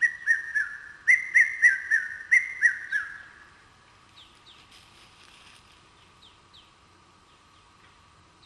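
A loud series of about ten short whistled chirps, each rising then falling, roughly three a second, stopping about three seconds in. A steady high hum and faint, higher falling bird chirps carry on behind them.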